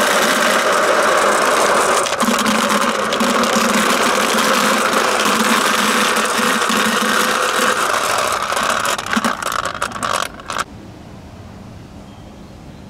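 Marbles poured from a plastic jar into a plastic bucket: a dense, steady clatter of marbles hitting each other and the bucket, thinning to a few scattered clicks and stopping abruptly about ten seconds in.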